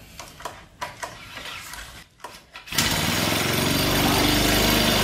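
A few faint clicks and knocks, then about three seconds in the Honda WJR4025 backpack sprayer's small four-stroke engine catches on the pull-start and runs on at a steady idle, throttle at its lowest setting.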